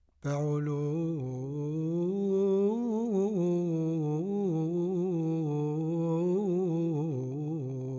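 A single low voice sings one long wordless, chant-like line on the soundtrack, its pitch slowly wavering and swelling. It comes in sharply just after the start.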